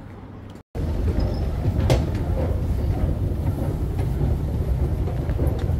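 Steady low rumble of a vehicle in motion, starting abruptly after a brief dropout less than a second in and running on evenly.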